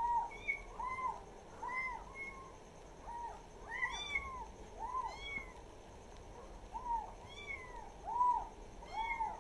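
Kittens mewing repeatedly: about a dozen short, high-pitched mews, each rising and falling, coming roughly once a second or faster.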